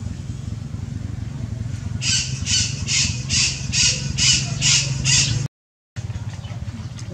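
Baby monkey giving a run of about eight loud, high-pitched squawking calls, evenly spaced at roughly two and a half a second, starting about two seconds in. A steady low hum runs underneath, and the audio drops out for a moment about five and a half seconds in.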